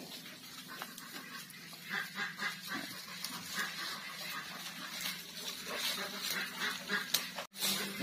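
Goats feeding on maramais grass at a bamboo trough, with soft scattered rustling and tearing of the leaves and faint animal calls.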